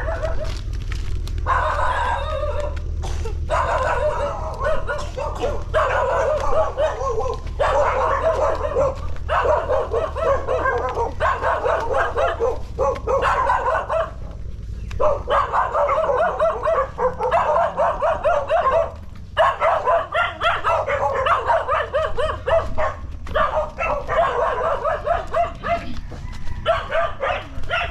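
A dog barking and yipping in long runs of rapid barks with short pauses between them, over a steady low rumble.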